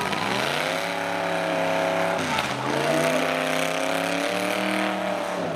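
Derby pickup truck engine revving hard: its pitch climbs, dips briefly about two seconds in, then climbs again and holds.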